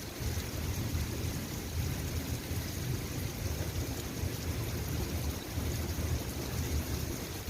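Steady rain falling, an even hiss, with a stronger fluctuating low rumble underneath.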